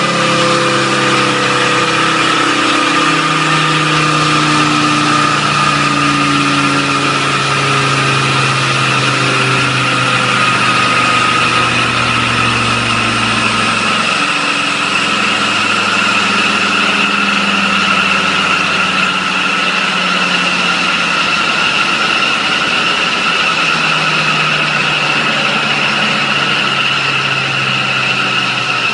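Volkswagen 2.5 TDI straight-five turbo diesel running steadily, its engine speed shifting up and down in steps, with a steady high whine throughout.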